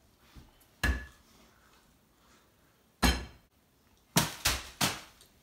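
Five sharp knocks on hard surfaces: one about a second in, a louder one with a short ringing clatter about three seconds in, and a quick run of three near the end.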